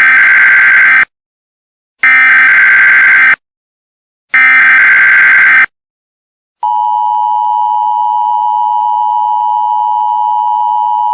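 Emergency Alert System tones: three loud screeching bursts of SAME header data, each about a second long with a second's gap, then the steady two-tone attention signal (853 and 960 Hz) starting about six and a half seconds in and holding.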